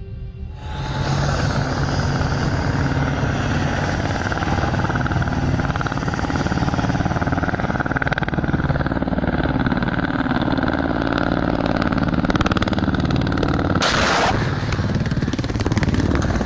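Military helicopter's rotors and turbine engines running, loud and steady. About fourteen seconds in comes a sudden loud rushing burst, followed by a few sharp cracks near the end.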